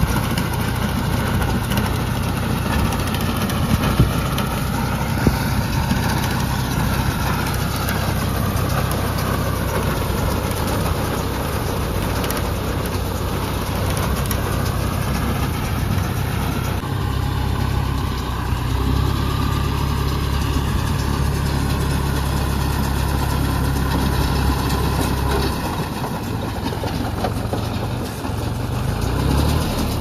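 John Deere tractor's diesel engine running steadily under load while driving a round baler, with the baler's machinery whirring as it picks up straw. The engine note shifts a little past halfway and again near the end.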